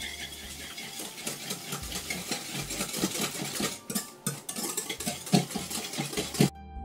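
Hand whisk beating eggs and sugar in a glass bowl: fast, irregular clicking and scraping of the whisk against the glass. It stops suddenly near the end.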